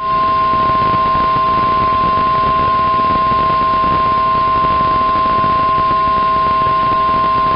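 Weather-radio warning alarm tone: one steady, loud, high-pitched tone of about 1050 Hz over radio hiss. It announces that a warning message follows.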